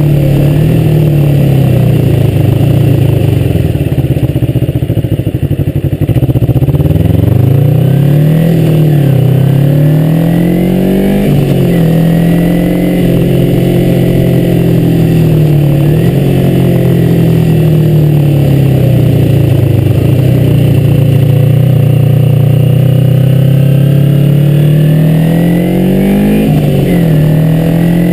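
A 2003 Kawasaki Ninja 250's parallel-twin engine running on the move. Its pitch climbs and falls with the revs, dropping sharply a few times between gears.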